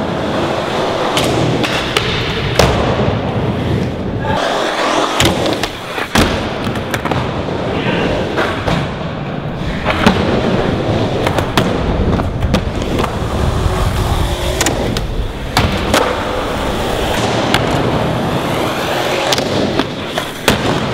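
Skateboard wheels rolling on concrete ramps and flat ground, broken by repeated sharp clacks and thuds of tail pops, board flips and landings.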